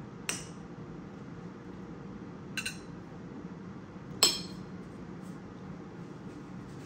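Metal cutlery clinking against ceramic dinner plates and a bowl: one clink about a third of a second in, a quick double clink midway, and the loudest, ringing clink about four seconds in. A steady low hum runs underneath.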